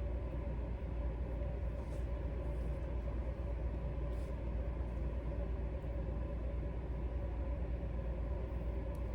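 Steady low rumble with a faint constant hum, like a fan or air conditioner running, with a few faint light ticks.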